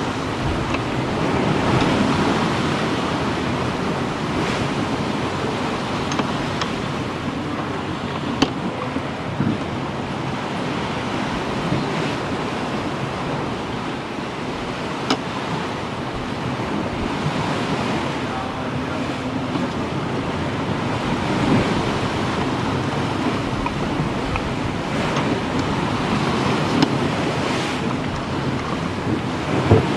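Sea water washing and wind noise aboard a two-masted sailing schooner, a steady rushing sound with a few short sharp knocks scattered through it.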